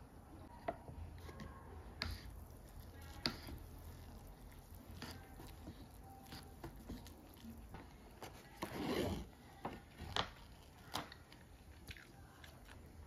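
Quiet eating sounds: kimbap being chewed, with small clicks and taps. The paper lid of a cup ramen rustles as it is peeled back and pulled off, loudest about nine seconds in.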